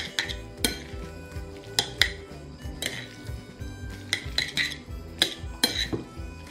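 Metal chopsticks clinking and scraping against a plate at irregular intervals while noodles are tossed and mixed in their sauce.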